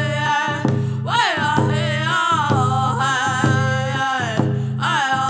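Two men singing a round dance song, accompanying themselves on hand drums with a steady beat; the voices swoop up to a high note about a second in and again near the end.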